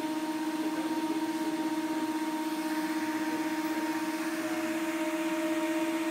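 Materials testing machine running as it loads a balsa wood truss bridge: a steady machine hum with several held tones, the highest of which drops out about four seconds in.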